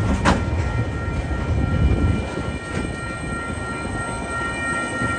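Coal hopper wagons of a freight train rolling past at close range: a steady low rumble of wheels on rail with several steady high-pitched tones over it, and a sharp clank about a quarter of a second in.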